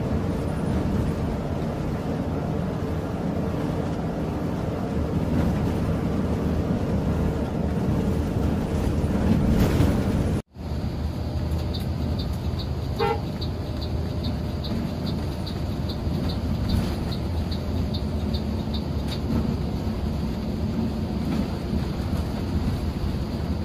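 Steady bus engine and road noise, swelling louder for a couple of seconds before an abrupt cut about ten seconds in. After the cut the running noise resumes, with a light ticking at about two a second for several seconds.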